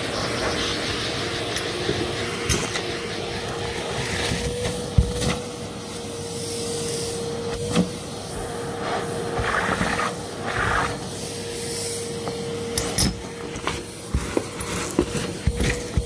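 Numatic 'Hetty' cylinder vacuum cleaner running steadily with a constant motor whine, with scattered knocks and clicks along the way.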